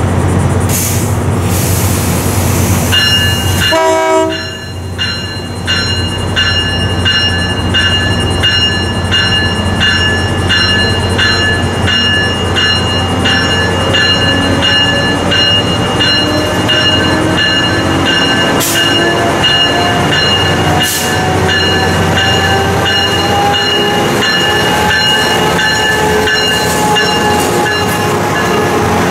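A train passing a grade crossing, with the crossing bell ringing in even, repeated strokes. In the second half a faint whine rises slowly.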